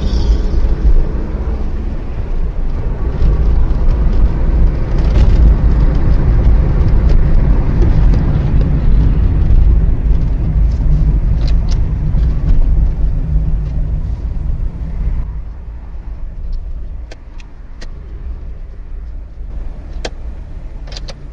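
Car driving, heard through a dashcam inside the cabin: a loud, steady low rumble of engine and road noise that eases about 15 seconds in. A few brief sharp clicks come in the second half.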